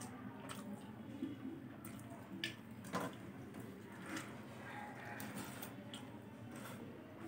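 Quiet wet chewing and lip-smacking of a person eating fried chicken by hand, with a few scattered small clicks, the sharpest about three seconds in.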